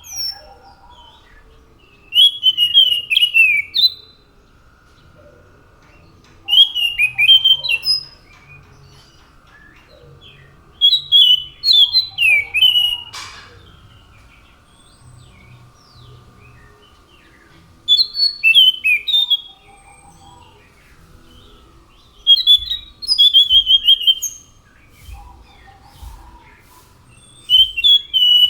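Scaly thrush (anis macan) singing: phrases of quick, falling whistled notes, each lasting about two seconds and repeated every four to five seconds. There is a single sharp click about halfway through.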